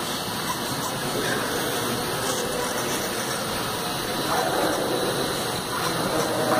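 Small electric motors and propellers of indoor RC J-3 Cub model airplanes whirring as a steady rushing noise, with a faint motor whine that shifts in pitch about four seconds in.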